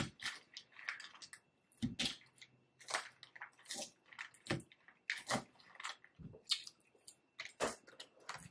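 Close-miked chewing of a crisp salad: wet, crunchy mouthfuls with a sharp crunch every half second to a second.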